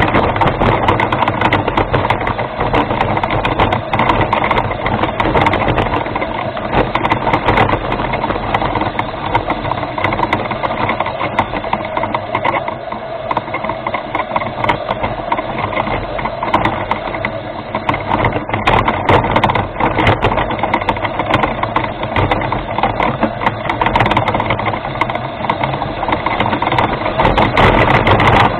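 Remote-control rover driving along steadily, its drive motors and gears running with a dense rattle and many small clicks from the wheels on rough ground.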